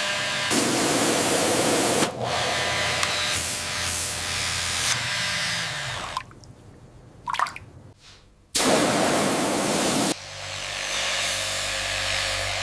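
Water spray hissing onto a rusted padlock in several bursts that start and cut off abruptly, with a quieter gap partway through.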